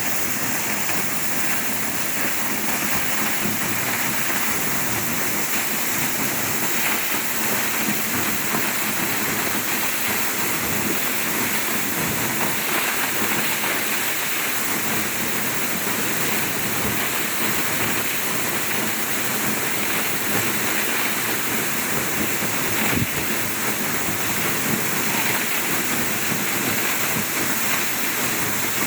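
Waterfall: water falling steadily, an even unbroken rush heavy in the higher pitches.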